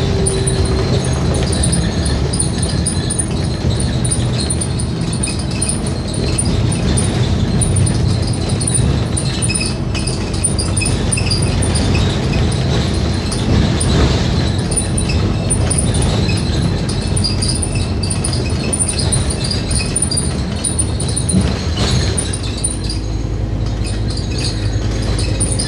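Scania K310UD double-decker bus driving at speed, heard from inside the upper deck: a steady engine and road rumble with constant light jingling and rattling of the bus's interior fittings. Near the end the rattling thins out and a steady low drone is left.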